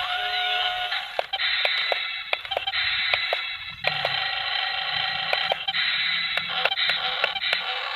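Electric motors and plastic gearboxes of a toy RC excavator whirring in spurts, with many sharp clicks and ticks, as it digs and loads sand.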